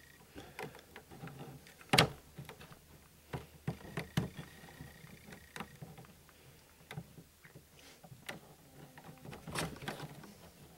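Clicks and knocks of 3D-printed plastic robot parts being handled and fitted together, with one sharp knock about two seconds in and a few more near the end.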